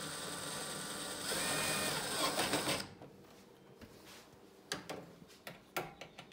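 DeWalt cordless drill-driver running steadily for about three seconds, driving a screw into the gas range's sheet-metal front. It gets louder about a second in as the screw bites, then stops. A few sharp clicks and knocks follow.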